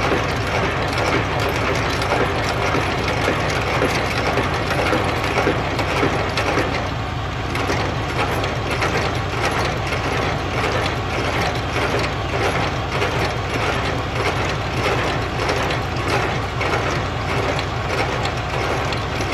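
Semi-trailer landing gear being hand-cranked up, its gearbox clicking and ratcheting steadily with each turn of the crank.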